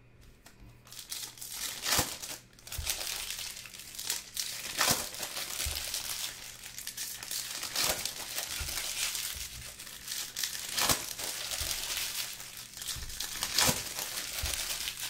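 Shiny trading-card pack wrappers crinkling as Topps Chrome Soccer packs are opened and the wrappers crumpled by hand, with a louder sharp crackle every two to three seconds.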